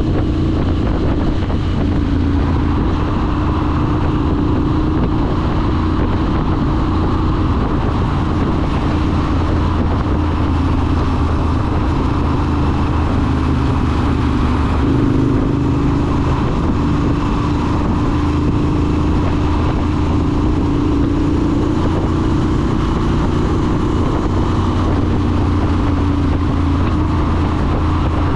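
Triumph Scrambler 900's parallel-twin engine running through a ZARD aftermarket exhaust while cruising at a steady speed, with road noise. The engine note rises a little about halfway through.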